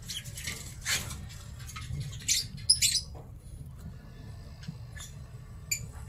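Sun conures in a nest box making short raspy squeaks and a few thin chirps, over a steady low hum.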